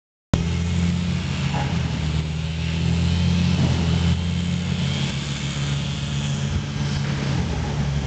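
Chainsaw running steadily under load as it cuts through a large felled tree trunk.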